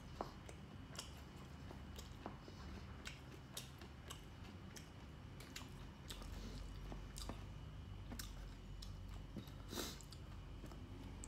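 A person chewing seafood close to the microphone, with soft wet mouth clicks and smacks scattered irregularly throughout and one louder click near the end.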